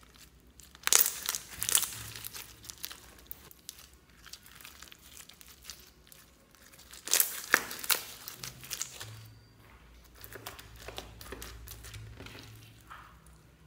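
Clear slime packed with small plastic beads being squeezed and kneaded by hand, crackling and clicking as the beads squish through it. The loudest bursts of crackling come about a second in and again about seven seconds in, with lighter crackles between.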